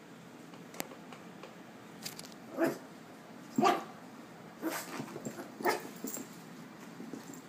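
Miniature Pinscher barking: four short barks about a second apart, with a few fainter ones between them.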